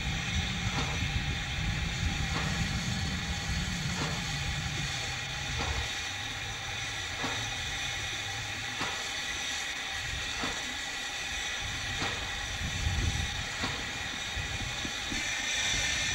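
Steam locomotive hissing steam steadily, over a low rumble that fades about five seconds in and comes back near the end, with a light click about every second and a half.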